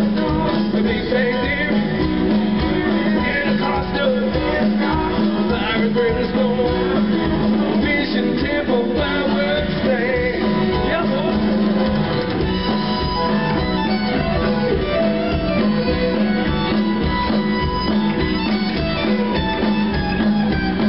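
Live country band playing an instrumental break: a steady drum beat under guitar and fiddle, amplified through the stage sound system.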